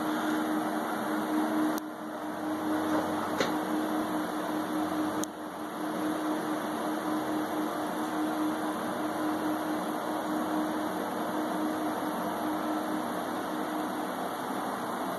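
Steady rushing hum of air-handling equipment running in a small underground equipment vault, with a low steady tone that fades out near the end and a few faint clicks in the first seconds.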